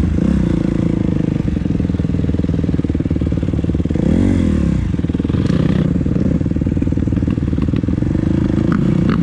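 Dirt bike engine running under way on a trail, close to the microphone. The revs climb and drop back about four seconds in.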